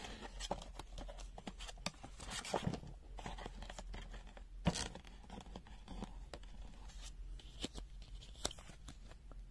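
Paper and plastic packaging of a multimeter's accessories being handled: light rustling and crinkling, broken by irregular small clicks and taps.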